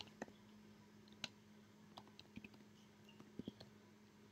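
Faint, irregular computer keyboard keystrokes as a terminal command is typed, about eight scattered clicks with a short cluster near the end.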